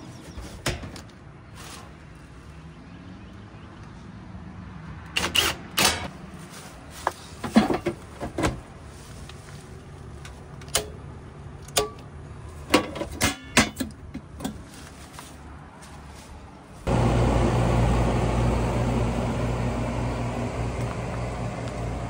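Scattered clicks and knocks, then about 17 seconds in a Goodman heat pump's outdoor unit starts abruptly and runs: a steady low electrical hum under an even airy noise. The unit is running again after its disconnected low-pressure switch connector was reconnected.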